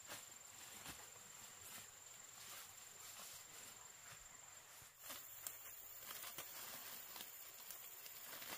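Near silence: faint outdoor background with a thin, steady high-pitched tone and a few soft taps.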